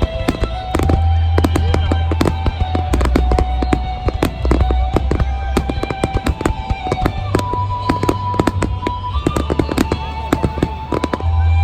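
Fireworks shells going off in quick succession, many sharp bangs and crackles, over music with sustained notes and a deep bass.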